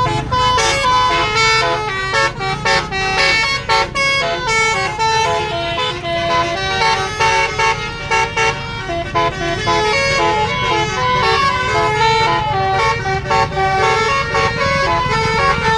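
Basuri telolet horns, a set of multi-trumpet air horns, playing a fast tune of quickly changing notes, several sounding together as chords. A steady low rumble runs underneath.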